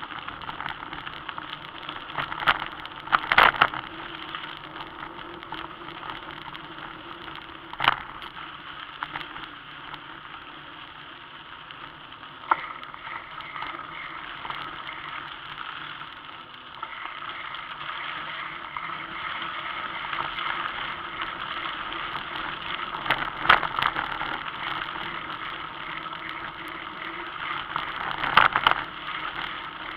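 Steady rumble of tyres rolling over a dirt track, with wind noise, broken by a few sharp rattles from bumps; the loudest come about three seconds in and near the end.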